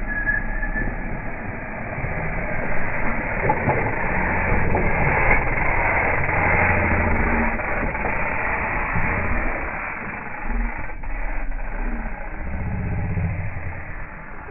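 Mountain bikes passing on a loose, dusty dirt trail: tyres rolling and sliding through the dirt, under a steady dull rush of noise that is loudest mid-way through.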